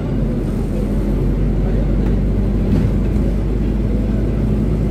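Rear-mounted Scania OC09 engine of a Scania K250UB city bus running, heard from inside the passenger cabin as a steady low drone.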